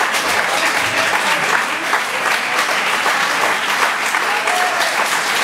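Small crowd of spectators applauding, steady dense clapping throughout.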